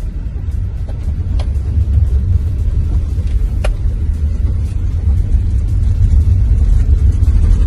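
Vehicle driving on a gravel dirt road, heard from inside the cabin: a steady low rumble of tyres and engine, with two sharp ticks about a second and a half and three and a half seconds in.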